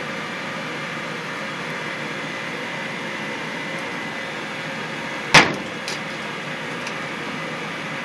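Steady mechanical hum of the boiler room, with one sharp knock about five seconds in as the removed metal boiler burner is handled.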